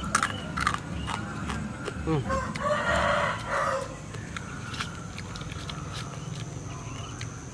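A rooster crowing once, about two and a half seconds in, lasting about a second and a half. Scattered sharp clicks come before it.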